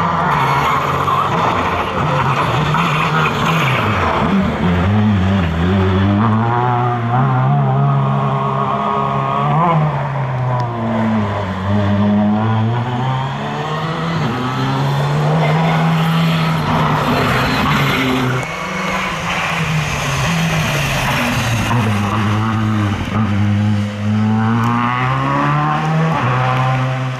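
Škoda Fabia R5 rally car's turbocharged 1.6-litre four-cylinder engine revving hard, its pitch climbing and dropping over and over through gear changes, with the tyres sliding on gravel.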